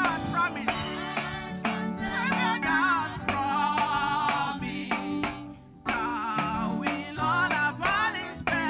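A woman leading a gospel hymn into a microphone, with a choir singing along over keyboard accompaniment and a steady beat. The music dips briefly just past halfway, then carries on.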